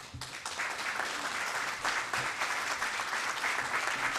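Audience applauding, building up in the first half second and then holding steady.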